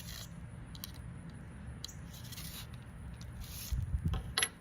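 Small metal parts of a handheld knife-sharpening rod system being handled as one rod is changed for the 1000-grit rod: faint, irregular scrapes, then a few sharp clicks near the end, over a steady low hum.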